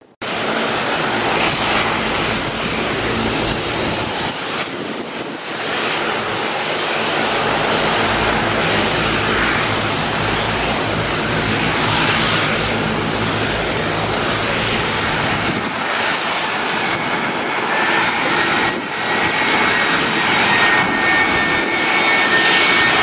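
Twin-engine jet airliner on final approach, a steady rushing roar from its engines that grows louder as it nears. A high engine whine comes in over the last few seconds.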